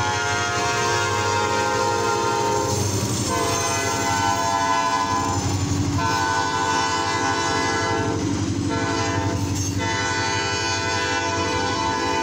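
Chicago, Fort Wayne & Eastern locomotive #2095's air horn sounding a chord for a grade crossing. It gives several long blasts and one short one, separated by brief breaks, over the rumble of the passing freight train.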